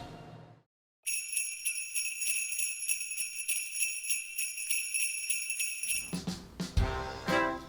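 Jingle bells shaken in a steady, quick rhythm for about five seconds after a brief silence, with a band starting up near the end.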